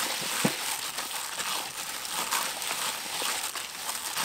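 Disposable plastic glove crinkling and rustling as a hand kneads and squeezes chopped shallots, garlic and chilies with seasonings in a stainless steel bowl, with a light knock about half a second in.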